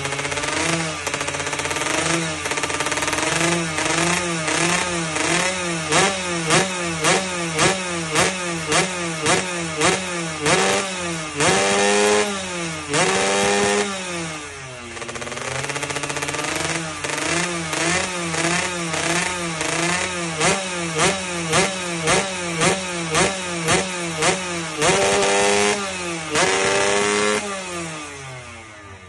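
Motorcycle racing engine on test, idling and then revved in quick throttle blips about two a second, with a few longer revs that climb high and fall back.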